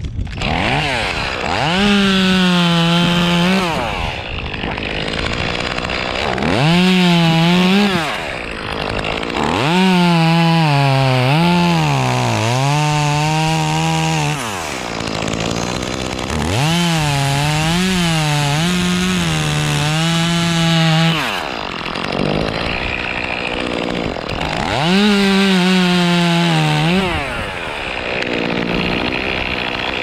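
Two-stroke chainsaw revved to full throttle five times in a row, the pitch dipping and wavering under load as it cuts, and dropping back to a lower run between cuts.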